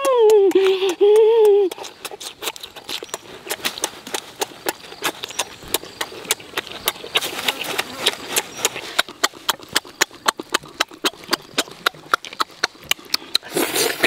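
A man's drawn-out, wavering hum at the start, then close-up eating sounds: sharp clicky chews and mouth smacks, about three a second. Near the end comes a loud breathy gasp.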